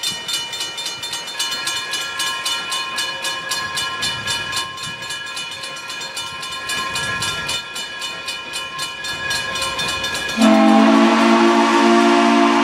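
Grade-crossing bell ringing rapidly, about five strokes a second. About ten seconds in, an approaching 4-4-0 steam locomotive sounds a long, loud blast on its multi-note chime whistle, which carries past the end.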